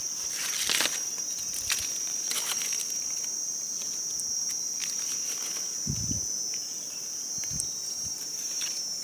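Steady high-pitched insect chirring from the forest, with scattered light rustles and clicks of hands and a knife working in dry leaves and stony soil as a wild mushroom is picked and trimmed. A few soft low thumps come in the second half.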